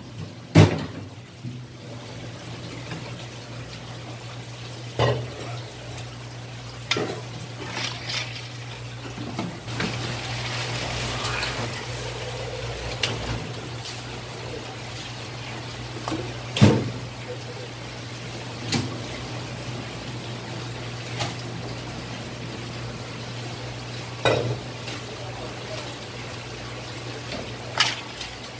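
Kitchen handling sounds: scattered sharp knocks and clatters of steel bowls and utensils, with water splashing and a few seconds of running or pouring water near the middle. A steady low hum sits underneath throughout.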